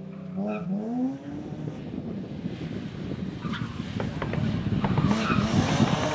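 BMW M3 rally car's straight-six engine revving up, then running hard with a rough, uneven note that grows steadily louder as the car approaches.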